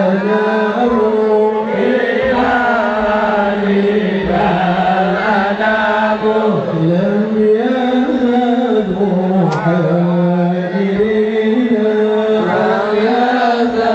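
Islamic devotional singing (sholawat): a solo voice chants long, winding melismatic phrases that glide up and down in pitch without pause.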